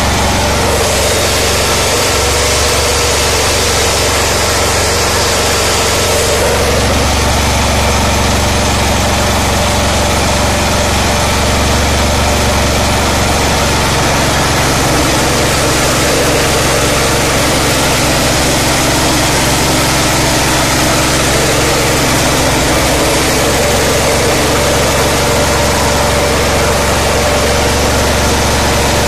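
Mini rice huller running steadily under power, driven by its small petrol/LPG combo engine, with a constant engine hum and milling noise while it hulls paddy.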